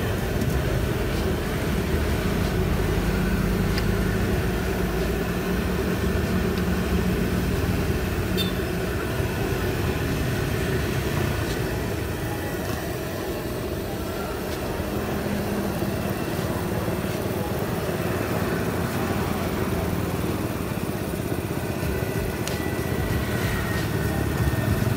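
Hot oil sizzling in a wok as spoonfuls of batagor batter fry, over a steady low engine hum of motorbike traffic.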